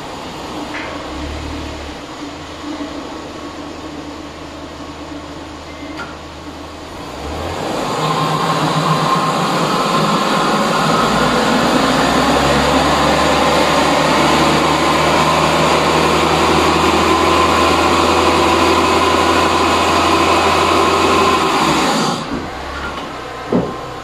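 Vehicle inspection roller tester running with the car's front wheels turning on its rollers: a steady mechanical hum and whine that starts about a third of the way in, runs for about fourteen seconds and stops near the end. Before it, a quieter low hum comes and goes.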